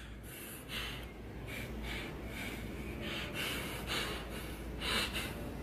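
A man's quiet breaths through the nose: several short puffs of air about a second apart.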